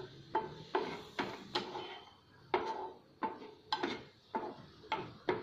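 Spatula knocking and scraping against a frying pan as prawns are stirred and fried: about a dozen sharp taps at roughly two a second, each with a short metallic ring, with a brief pause near the middle.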